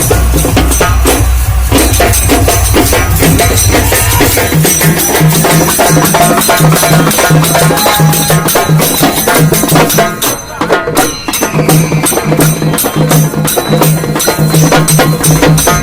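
Halgi frame drums beaten fast and hard with sticks in a loud, dense rhythm. A low, evenly repeating beat joins about a third of the way in, and there is a short break a little past two-thirds through.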